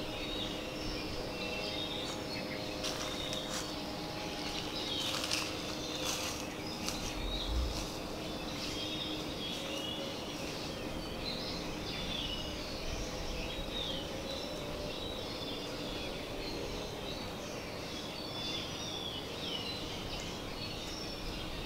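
Tropical forest ambience: many birds chirping and calling over a faint steady hum. A few sharp clicks come a few seconds in, and a brief low thump follows at about seven seconds.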